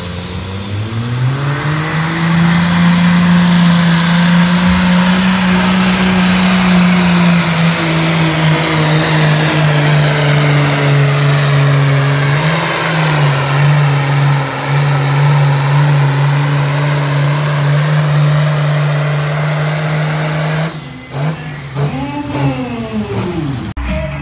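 Pro Stock pulling tractor's modified diesel engine at full throttle hauling the weight sled: it climbs in the first couple of seconds, then holds high and steady, its pitch slowly sagging under the load. About 21 seconds in it drops off suddenly, and the engine is revved up and down a couple of times.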